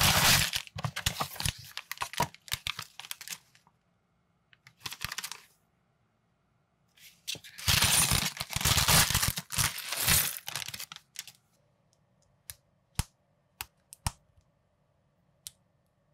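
A small cardboard box being torn and pulled open, then a thin plastic bag crinkling and tearing open. Near the end come about five sharp clicks as the plastic pieces of an unofficial LEGO-style minifigure are snapped together.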